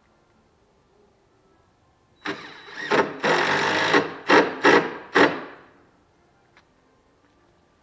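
Cordless drill driving screws into a plywood workbench top: two longer runs of the motor, then three short trigger bursts as the screw is run home.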